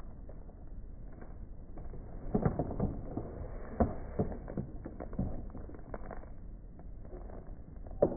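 A small dog mouthing and tugging at a plush watermelon-slice toy, handled by a person's hand: a run of soft knocks and rustles about two to five seconds in, and one sharper knock near the end.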